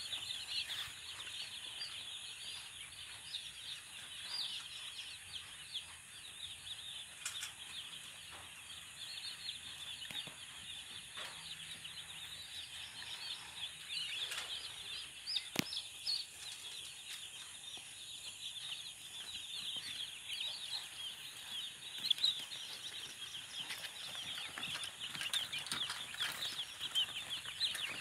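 A large flock of day-old chicks peeping continuously, a dense chorus of short high chirps. A single sharp click is heard about halfway through.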